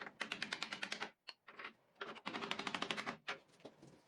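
Rapid, even mechanical clicking, about ten clicks a second, in two runs of roughly a second each with a short pause between.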